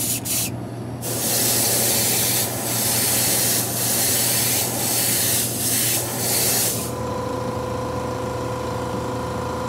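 Airbrush spraying cold glaze: a strong hiss of air and spray lasting about six seconds with a few short breaks as the trigger is eased, after a brief test puff at the start. Under it a fan runs with a steady hum, and near the end, once the spraying stops, a steady whine is left.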